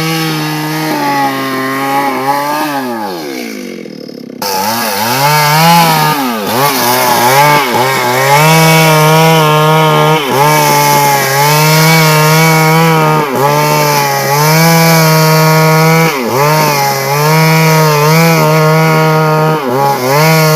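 Chainsaw running at high revs while ripping a large sengon log lengthwise into boards. The engine pitch sags briefly every couple of seconds as the chain bites into the wood, then recovers. About three seconds in the revs fall away, then cut back in suddenly at full speed just after four seconds.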